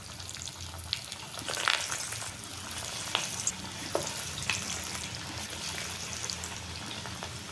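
Masala vadas (chana dal fritters) sizzling as they deep-fry in hot oil in a kadai, with a steady hiss and scattered crackles and pops.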